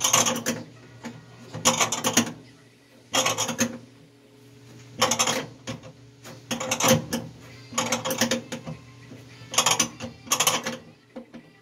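Ratchet wrench clicking in short bursts as a nut is tightened, about eight strokes roughly every second and a half.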